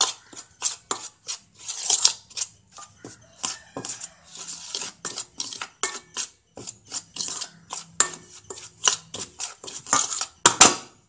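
A spoon scraping and clinking in a stainless steel bowl while stirring dry spice powders and flour together. The strokes are quick and irregular, and some leave a short metallic ring.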